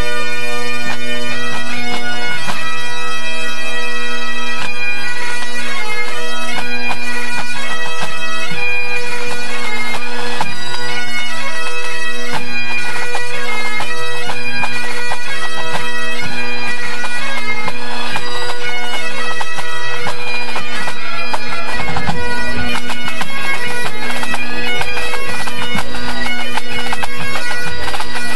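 Pipe band tuning up: Great Highland bagpipes playing a tune together over their steady drones, with the band's drums, including a bass drum, beating along.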